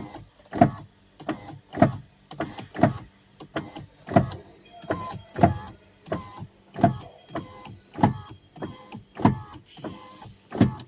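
Škoda Kylaq front left power window running, with a regular short knocking creak from inside the door panel, a little under two a second. It is the abnormal glass noise of a faulty window regulator (lifter mechanism), which was cured by replacing the regulator assembly.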